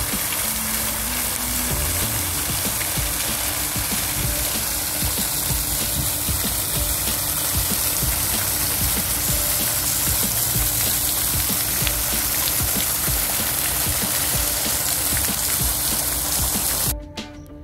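Fountain jets splashing steadily into a shallow basin, a constant rush of falling water that cuts off abruptly near the end.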